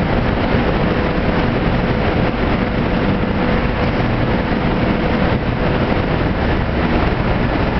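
Steady noise of a UV roller coating line running: the roller coater, the conveyor belt and the UV curing unit's motors and fans, with a faint steady whine through most of it.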